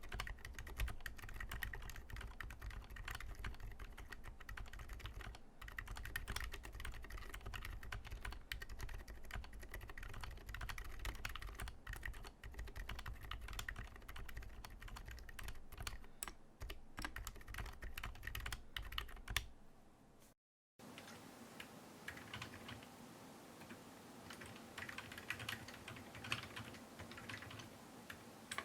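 Steady typing on a TADA68 mechanical keyboard with silenced linear switches (Gateron Ink Black housings with MX Silent stems, lubed) and MT3 ABS keycaps in a wooden case: soft, damped keystrokes. About twenty seconds in, the sound cuts out briefly and the typing continues heard from farther off through a camera's built-in microphone, thinner and with less low end.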